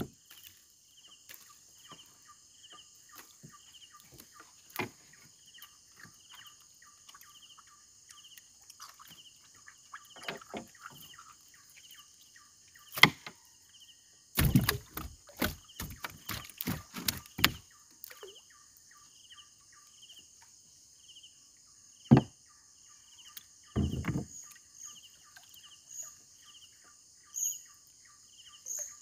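Steady chorus of insects with a chirp repeating about twice a second, broken by scattered knocks and rustles, most of them in a cluster about halfway through.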